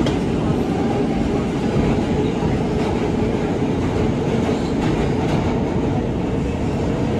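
New York City Subway F train car running on the rails: a steady, loud rumble and rattle of wheels on track, with a few faint clicks.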